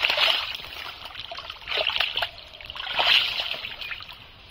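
Hands splashing and sloshing in shallow muddy pond water while groping for catfish, in three louder bursts of splashing: at the start, about two seconds in, and about three seconds in.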